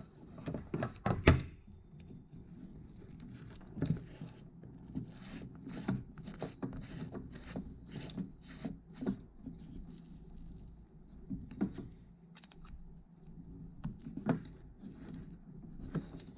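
Metal hex keys clicking and scraping on a bolt and nut as a neck brace's rear tether bolt is threaded in and tightened. Light irregular clicks, with a louder knock about a second in and a run of clicks at about two a second in the middle.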